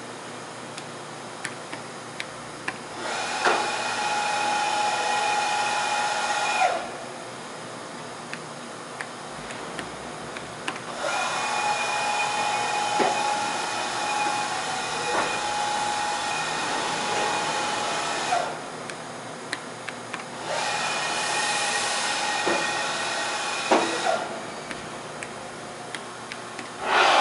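Fadal 6030 vertical machining center traversing its axes: the servo drives and ball screws run with a steady multi-pitched whine in three moves that start and stop sharply, the middle one about seven seconds long. Faint regular ticking sounds between the moves.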